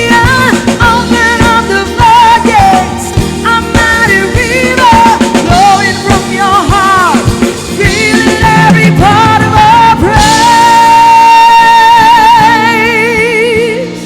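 Live worship band playing a song's closing section with drums and sustained chords, and a voice singing wordless runs over them, ending on a long held note with vibrato that fades near the end.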